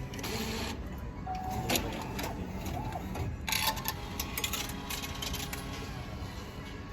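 A short electronic beep followed by bursts of mechanical clicking and clattering, like a machine dispensing or printing, over steady background music and room noise.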